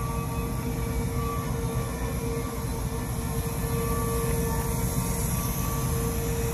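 A steady mechanical drone: a constant hum over a low rumble and hiss.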